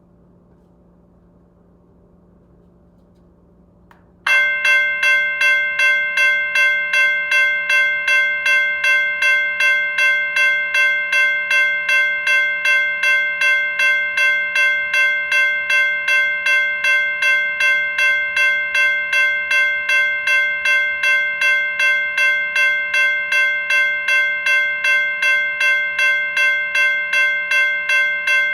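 NEG electronic bell set to its loudest volume, switching on about four seconds in and then ringing steadily, a bit under two strikes a second. Each strike is a clear ding with several pitches that fades slightly before the next. Before it starts there is only a faint low hum.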